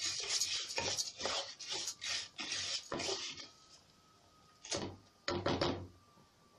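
A wooden spoon stirring golden-toasted rice in a nonstick pot: repeated scraping strokes with the grains rustling. The strokes pause about halfway through, then come twice more before stopping.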